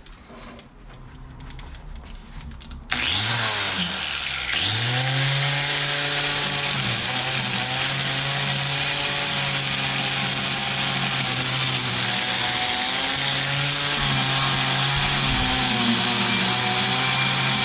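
Electric power tool switched on about three seconds in, spinning up to speed and then running steadily with a hiss, its pitch dipping briefly a couple of times. Before it starts, faint clicks of handling.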